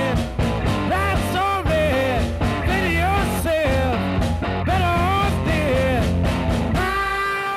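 Rock music with a melody line that slides between notes over a steady bass line; it cuts off near the end.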